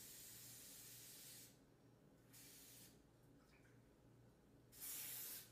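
Aerosol baking spray hissing faintly as it coats a baking pan: a longer spray that stops about a second and a half in, then two short squirts, the last the loudest.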